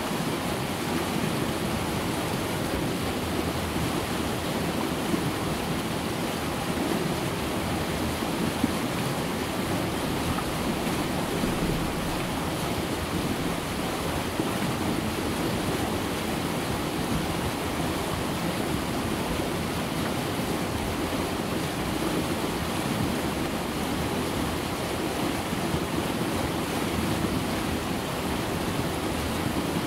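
River Conwy rapids: water rushing over and between rocks in a gorge, a steady, even rushing noise with no breaks.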